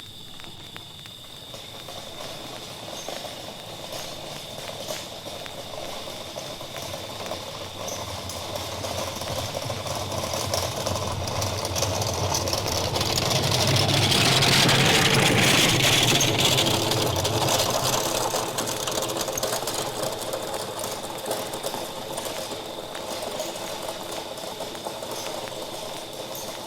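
A vehicle approaching with a steady mechanical rattle, growing louder until it passes close about halfway through, then fading into the distance.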